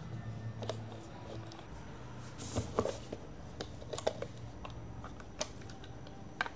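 Small clicks, taps and scrapes of a Marshall Willen II portable speaker's parts being handled during disassembly, coming irregularly, the sharpest about three seconds in and another near the end.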